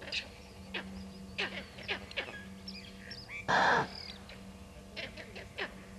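Wild animals' alarm calls at a hidden leopard: a run of short, sharp calls and some thin high chirps, with one loud harsh call about three and a half seconds in.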